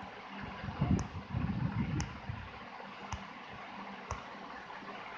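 Soft computer clicks, about one a second, as pages of a document are stepped through, over steady room noise. A low rumble comes in briefly about one to two seconds in.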